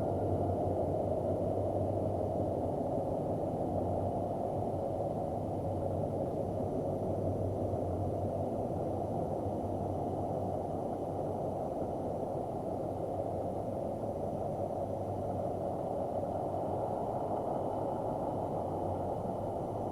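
Steady, unchanging low rumbling drone with a faint hum underneath, an ambient space soundscape presented as the sound of Saturn.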